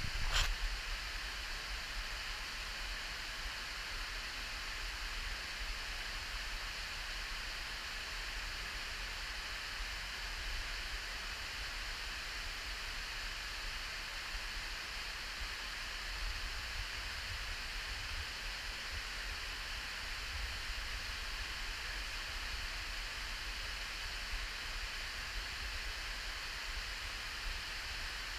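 Small waterfall pouring down a narrow rock gorge: a steady, even rushing hiss. A short knock comes right at the start.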